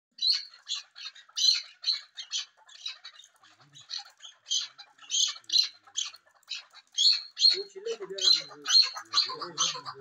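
Chukar partridges calling, a steady run of short, sharp notes at about two a second. From about three-quarters of the way in, a lower sound joins them.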